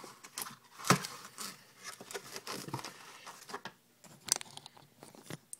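Hands handling a trading-card box and its packs: scattered taps, clicks and light rustling, with a louder knock about a second in and a sharp click around four seconds in.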